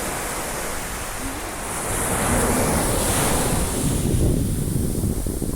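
Sea surf washing in and breaking, swelling louder about two seconds in, with wind buffeting the microphone.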